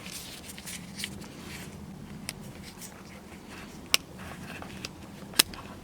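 Faint scraping and three sharp clicks, the last two loudest, as a flat-head screwdriver pries up the plastic retaining clip behind a BMW steering wheel to free the airbag.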